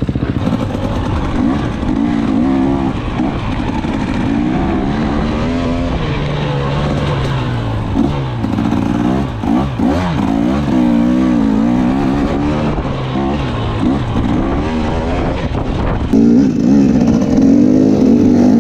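Dirt bike engine under way, revving up and dropping back again and again as the throttle opens and closes.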